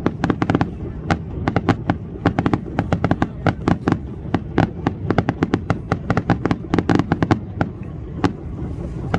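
Fireworks crackling: a rapid, irregular run of sharp cracks and pops, several a second, over a low rumble. They thin out near the end.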